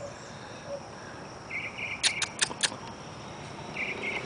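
Crickets chirping in short pulsed trills, with four quick sharp clicks about two seconds in.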